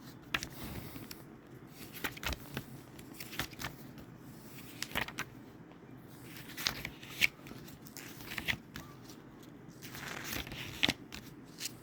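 Scattered light clicks and paper rustles from a book being handled, at irregular times, a couple of them sharper, over a faint steady room hum.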